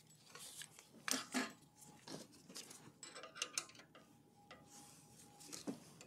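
Faint, scattered metallic clicks and clinks of a hand tool working at the front disc-brake caliper bolts of an e-bike, with a few sharper taps about a second in and near the end.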